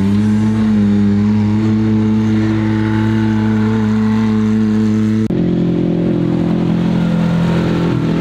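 Side-by-side UTV engine held at a steady high pitch after revving up. About five seconds in, the sound cuts abruptly to a steady, lower engine note.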